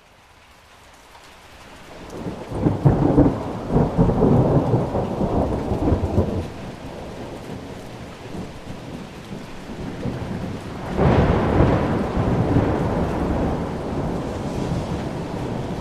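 Heavy rain with two rolls of thunder, fading in from silence at the start. The first rumble builds over the first couple of seconds and rolls on for about four seconds. The second breaks suddenly about eleven seconds in and slowly dies away under the rain.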